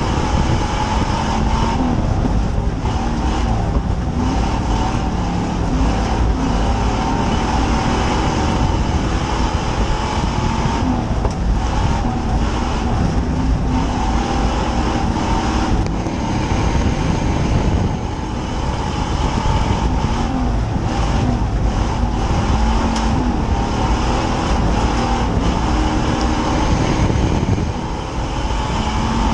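A dirt-track stock car's engine running hard at racing speed, heard from inside the roll-caged cockpit as a loud, steady rumble with road and wind noise. The engine note wavers, and the sound dips briefly about two-thirds of the way through and again near the end.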